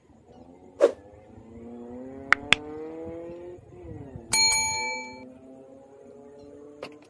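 A motor vehicle's engine running steadily and rising in pitch twice as it speeds up. Over it come a loud sharp knock, two quick clicks, and a loud metallic clang that rings for about a second midway.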